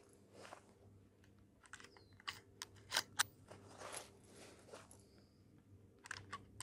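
Cartridges being pressed one at a time through the loading gate into the tube magazine of a Rossi R92 lever-action rifle in .357 Magnum: scattered sharp metallic clicks, a cluster about two to three seconds in and more near the end. The gate is stiff, the loading tight.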